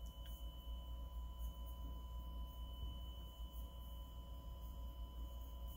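A faint, steady sine test tone with a fainter higher tone above it and a low hum beneath. This is a test signal through a Marantz 2245 receiver being driven into dummy loads during a power-output test.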